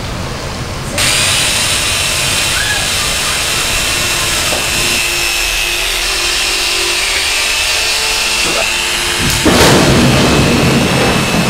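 A power tool whining steadily at a high pitch, cutting in suddenly about a second in; near the end it turns louder and rougher.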